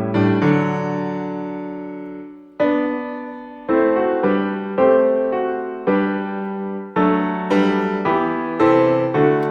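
Background music: a solo piano-like keyboard playing chords, each struck and left to ring out, at roughly one a second.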